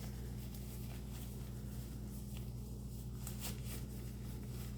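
Steady low hum of room tone with a few faint rustles and clicks about halfway through, from a disposable glove being peeled off a hand.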